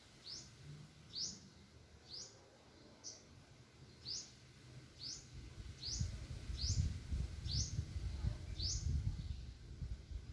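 A bird repeating a short, high, sweeping call note about ten times, roughly once a second. From about six seconds in, a low rumble rises beneath the calls and is the loudest sound.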